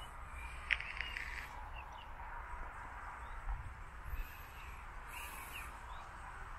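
Open-air ambience with a steady low rumble and hiss, broken by a short, sharp animal call about a second in and a second brief call about five seconds in.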